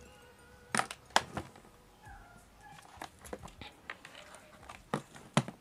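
A series of short, sharp clicks and knocks, several in quick pairs, the loudest about a second in.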